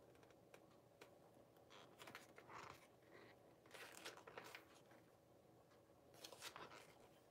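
Faint rustling of a paper instruction manual being handled, in three short spells.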